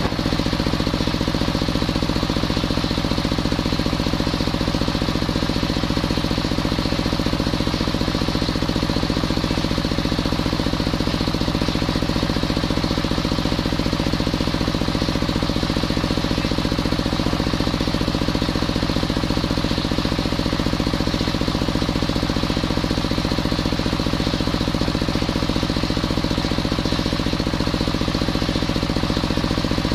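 Circular sawmill's drive engine running steadily with a fast, even pulse, the large circular blade spinning free with no wood in the cut.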